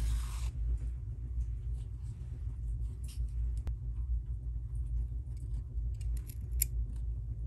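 Scissors snipping the yarn tail of a crochet stem: a few light clicks and snips, the sharpest near the end. A short rustle of yarn being pulled tight comes at the start, and a steady low rumble runs underneath.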